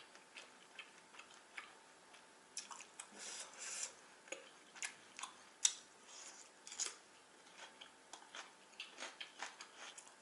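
Close-up eating sounds of jajangmyeon: irregular soft wet mouth clicks while chewing noodles, with a few short hissy stretches.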